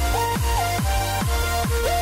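Electronic dance background music: a steady kick drum about two and a half beats a second under a synth melody that slides between held notes.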